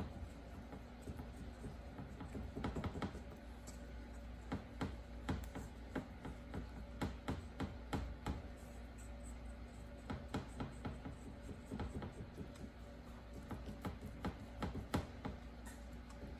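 Hands pressing and spreading shredded kadayif (kataifi) dough in a metal ring, giving a faint, irregular stream of crackles and rustles.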